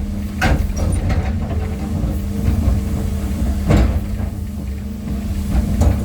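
A heavy engine running steadily at a constant pitch, with three sharp knocks: about half a second in, near four seconds, and near the end.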